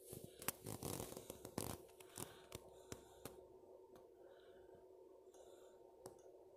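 Handling noise from a phone being moved by hand: rustling and scraping with sharp clicks in the first two seconds, then a few single clicks, over a faint steady electrical hum from the bench equipment.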